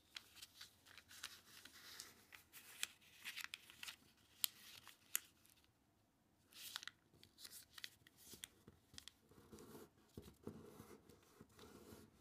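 A sheet of origami paper being folded and creased by hand: soft rustling with many small sharp crackles as fingers press and run along the folds, with a short pause about halfway through.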